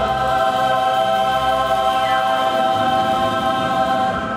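Mixed choir holding a long final chord, which cuts off together near the end.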